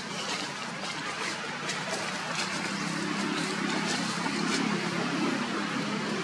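Outdoor background noise: a steady hiss with faint ticks, and a low hum that grows louder about halfway through.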